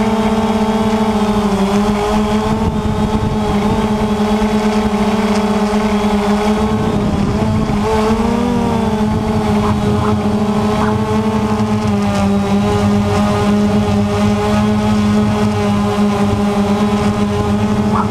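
Quanum Nova quadcopter's motors and propellers buzzing steadily, heard from on board. Its pitch shifts briefly about eight seconds in as it manoeuvres down.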